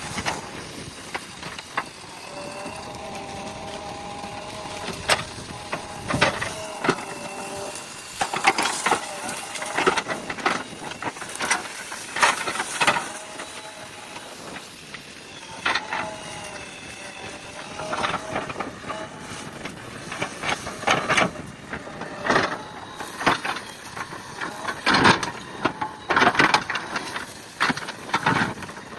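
JCB 3DX backhoe loader clearing land: irregular crunching and cracking of brush and earth being broken. A steady whine from the machine comes in about two seconds in for several seconds, and again around fifteen seconds.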